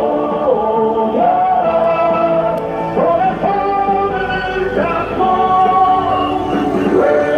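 Music with singing: a vocal melody of long held notes that slide from one pitch to the next.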